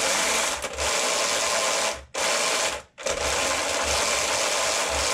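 RC snowmobile's electric drive motor and rubber track spinning on the bench, run from the toy's stock lithium battery through a speed controller: a steady mechanical whir that drops out briefly twice near the middle and cuts off near the end. The run drains the stock battery flat.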